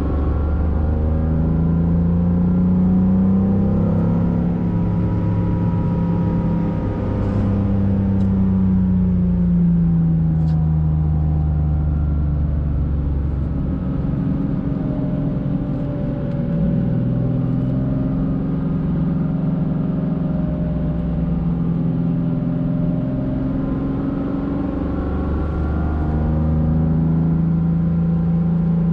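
Porsche 911 Carrera 3.2's air-cooled flat-six heard from inside the cabin on a gentle drive, its note rising and falling repeatedly as the car pulls and eases off.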